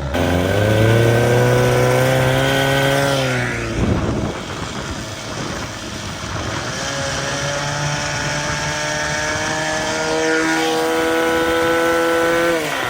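25 hp Johnson two-stroke twin outboard running under way, its pitch climbing about a second in, sagging for a moment around three to four seconds, then picking up again and falling off sharply at the end. It runs evenly on both cylinders: the intermittent misfire is cured.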